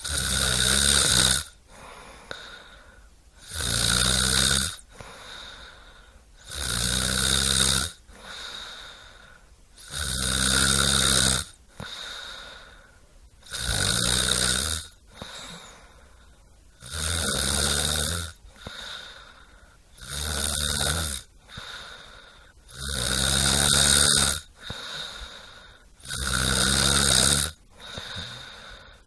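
A person snoring in a steady rhythm: a loud rasping snore about every three seconds, each lasting about a second and a half, with a quieter breath between snores.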